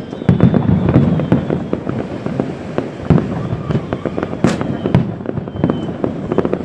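Aerial firework shells bursting in quick succession: a dense volley of bangs and crackling in the first second and a half, a run of lighter reports after that, and one sharp crack about four and a half seconds in.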